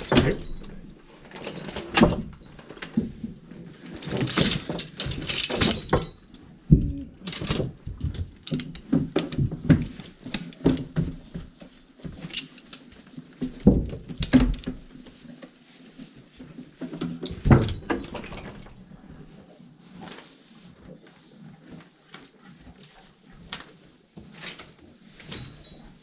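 A draft horse being harnessed in a wooden stall: irregular clinks and jangles of harness hardware, leather shifting, and knocks and thumps against the stall, thinning out in the last few seconds.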